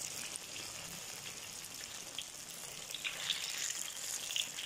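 Battered banana fritters deep-frying in hot oil in a wok: a steady sizzle with scattered crackles, and a few sharper clicks in the second half.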